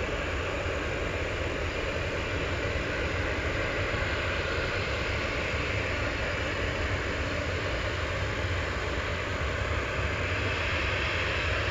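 Jet airliner engines, a steady rumble and hiss that holds at an even level.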